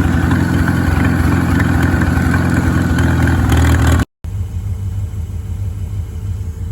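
An engine running loudly and steadily, then a sudden cut about four seconds in to a quieter, steady low engine rumble.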